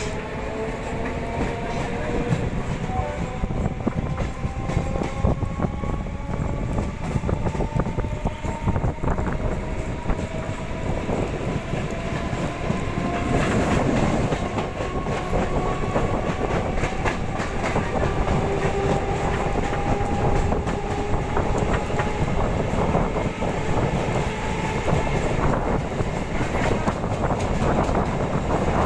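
Indian Railways train running on the track, with a continuous rumble and rapid clicking of wheels over the rails. Over it a whine rises slowly in pitch, as of the train gathering speed.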